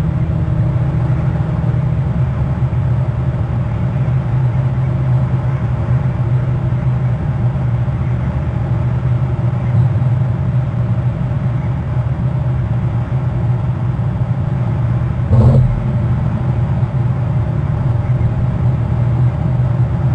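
Steady low droning hum at a constant pitch, with a single brief knock about fifteen seconds in.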